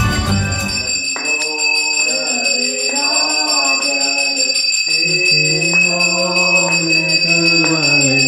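Background music fades out within the first second. A voice then sings a Hindu aarti in long drawn-out lines with short breaks, over a temple hand bell rung continuously.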